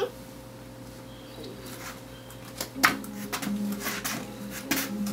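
Oversized men's dress shoes clomping as a toddler walks in them, their hard soles knocking on a foam play mat. There is one knock at the start, then a run of uneven, louder knocks from about halfway in.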